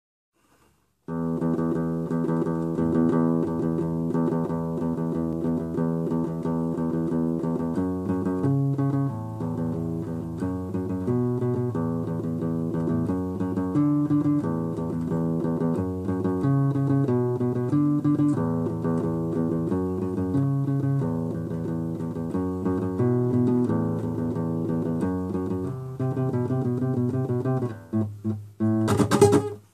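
Nylon-string classical guitar played solo, a repeating pattern of plucked chords that changes about every second, starting about a second in. Near the end the playing thins out into a short scratchy burst of noise.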